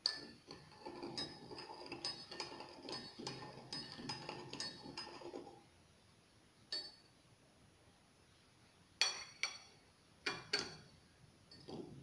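Metal teaspoon stirring tea in a ceramic cup, clinking quickly and repeatedly against the sides with a bright ring for about five and a half seconds. Later come a few separate, sharper clinks of the spoon against the cup and saucer as it is laid down.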